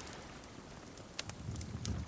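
Wood fire crackling: sharp pops, one a little over a second in and another near the end, over a low, steady rumble of burning.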